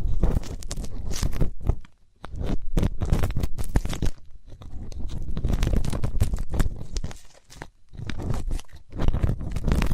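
Ear-cleaning ASMR sounds: an ear pick scraping and rubbing close to the microphone, a dense crackly scratching with a strong low rumble and brief lulls about two seconds in and near the eighth second.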